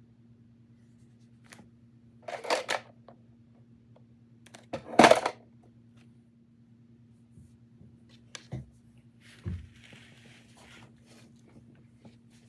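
Homework at a desk: paper and stationery being handled. There is a short rustle about two seconds in, a louder rustle about five seconds in, then a few sharp clicks and a soft knock, all over a steady low electrical hum.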